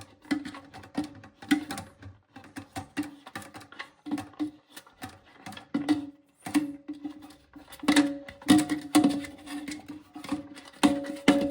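Irregular clicking and knocking of tools and parts against a porcelain toilet tank during disassembly, many knocks leaving the tank ringing briefly at one steady pitch, louder and more frequent near the end.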